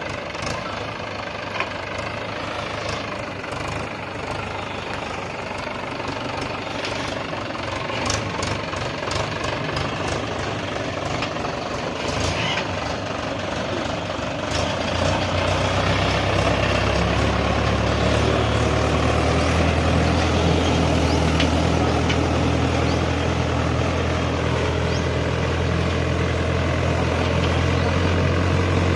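Tractor engine running steadily as it pulls a mouldboard plough, with scattered sharp clicks in the first half. About halfway through the engine sound grows louder and deeper and then holds steady.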